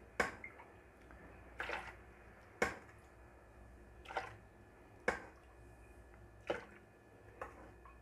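A metal ladle scooping cooking water from a pressure cooker's pot and pouring it into a plastic blender jar. The result is faint, separate clinks and short splashes, about seven of them, one every second or so.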